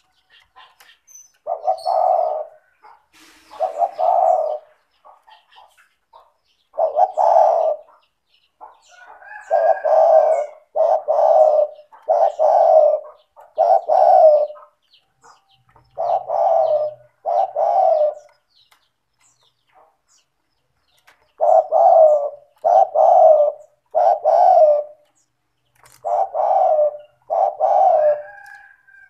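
Spotted dove (tekukur) in full song, giving its low cooing notes over and over in groups of two or three, with short pauses between phrases.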